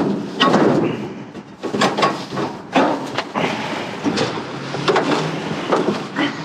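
Scrap being pulled around inside a dumpster with a garden hoe: repeated knocks and clatters with scraping and rustling between them.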